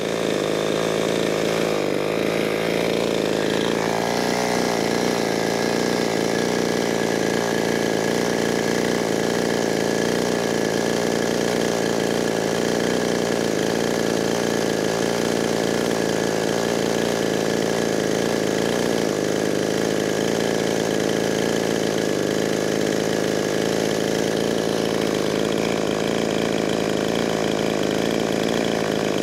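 Two-stroke clone chainsaw of about 62 cc idling steadily, with no cutting.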